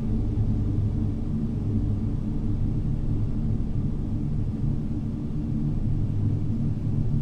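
Ambient music: a steady low drone of several sustained deep tones, with no beat.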